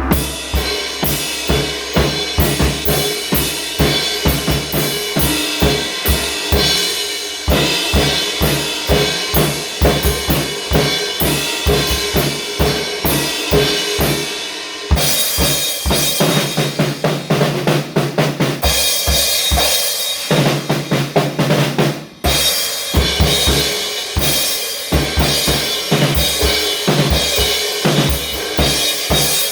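Music driven by drums: a busy, steady beat of bass drum and snare over sustained pitched tones, breaking off briefly about twenty-two seconds in.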